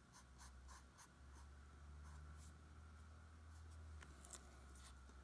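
Faint scratching of a drawing marker on paper: a series of short strokes filling in small dark pupils, over a low steady hum.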